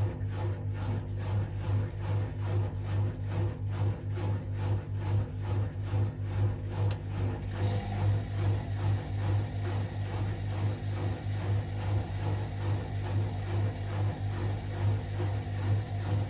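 Hotpoint WMA37 Aquarius washing machine running mid-cycle: a steady low hum that pulses in an even rhythm, with a slight change in the higher sounds about halfway through.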